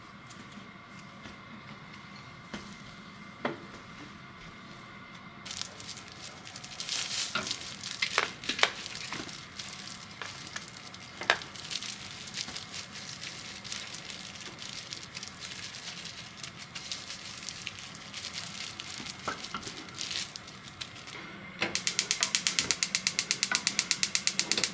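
Scattered light knocks and clinks over a faint hiss, then, about three seconds before the end, a loud run of rapid, evenly spaced mechanical clicks like a ratchet.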